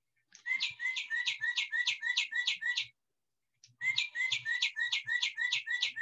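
Northern cardinal song played from a plush cardinal toy's built-in sound chip: two phrases of rapid, repeated down-slurred whistles, about four a second, with a short pause between them.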